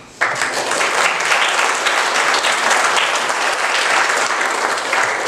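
Church congregation applauding: many people clapping together, breaking out suddenly just after the start and keeping up steadily.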